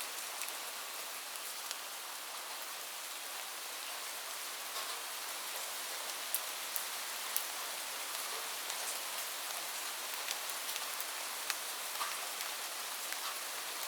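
Steady rain falling, an even hiss with scattered louder drops ticking on a hard surface.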